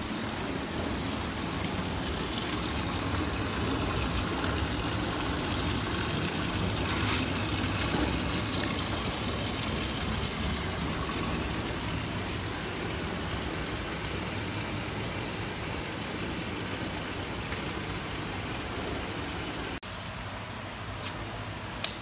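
Electric pressure fryer's oil drain-and-return system in use: a steady rush of flowing oil with a low hum underneath, which stops abruptly near the end. A single sharp click follows.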